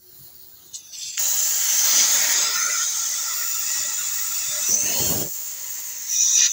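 A loud, steady hiss that starts about a second in, eases briefly near the end and then comes back.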